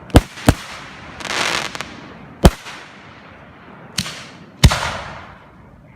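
Aerial fireworks shells bursting: five sharp bangs over the few seconds, each trailing off in echo, with a spell of hissing between the second and third.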